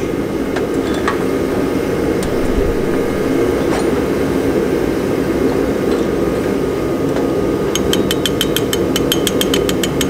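Spring-loaded punch clicking sharply against the roll pin of a VW Mk2 door handle's lock mechanism as it drives the pin out: a few single clicks, then a quick run of about seven clicks a second near the end. A steady low hum runs underneath.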